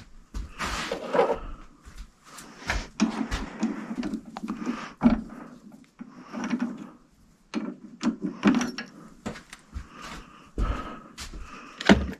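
Irregular knocks, clunks and scraping of metal parts and tools being handled at a workbench, in short uneven bursts with brief gaps.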